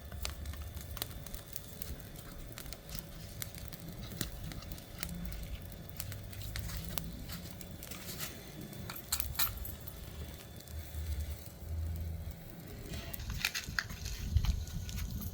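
Wood fire crackling, with irregular sharp pops and snaps and a low uneven rumble underneath; the pops come thicker near the end.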